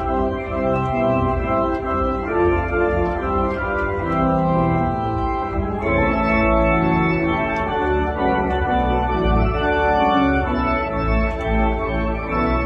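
Church organ playing a hymn arrangement: sustained chords on the manuals over a deep pedal bass line. The chords shift about six seconds in.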